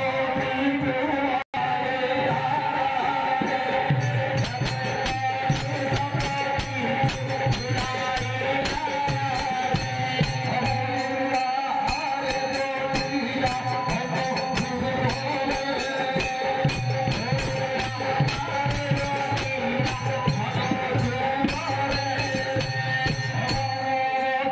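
Live music accompanying a folk-theatre performance: fast, busy percussion with jingling hits over steady held notes. The sound cuts out for an instant about one and a half seconds in.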